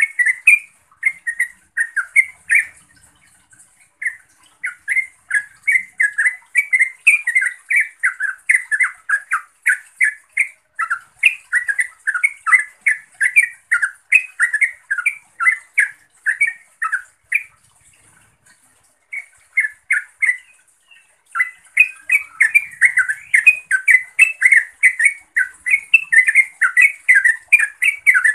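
Yellow-vented bulbul (trucukan) singing a fast, loud chatter of short bubbling notes, several a second, its call to rivals or companions. It breaks off briefly a few times.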